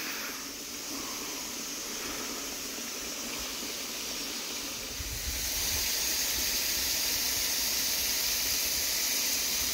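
Steady hiss of water pouring into a pond as it is filled, louder from about five seconds in.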